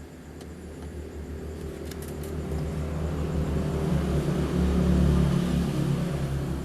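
A vehicle passing by: a low rumble that grows louder to a peak about five seconds in, then fades, over a steady low hum.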